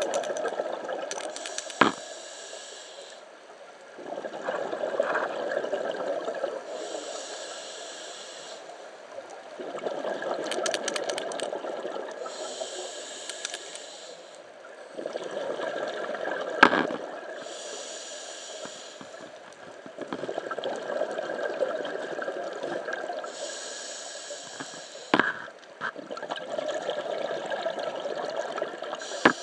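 Scuba diver breathing through a regulator underwater: a hissing inhale followed by a longer rush of exhaled bubbles, repeating about every five seconds. A few sharp clicks stand out, about two seconds in, midway and near the end.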